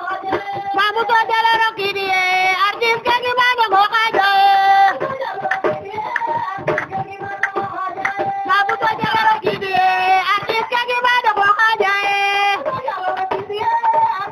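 Women singing a song together to hand clapping and a rope-tuned drum beaten with a stick, in a lively steady beat.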